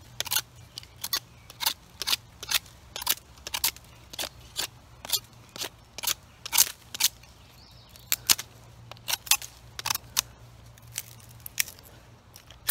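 Small straight-edged survival knife carving a very dry, dead stick: quick scraping cuts about two a second, fewer and further apart in the last few seconds.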